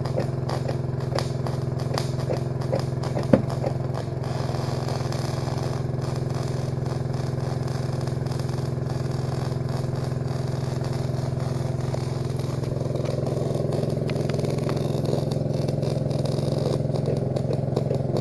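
MIG welding arc crackling irregularly, fed from an engine-drive welder on constant current, over the welder's engine running steadily; one sharp pop about three seconds in.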